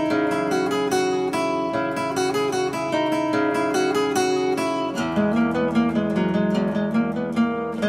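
Background music: a strummed acoustic guitar playing chords, with a change of chord about five seconds in.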